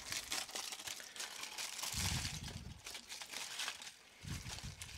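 Old, charred aluminium foil crinkling and crackling as it is handled and pulled off a sooty barbecue plate. Two dull knocks come about two seconds in and again about four and a half seconds in.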